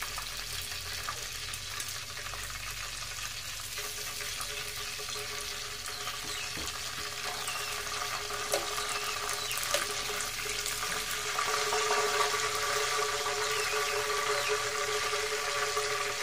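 Hot frying oil sizzling and bubbling steadily in a pan, with a breaded chicken cordon bleu roll still frying in it, and a few faint ticks. A faint steady hum joins about eleven seconds in.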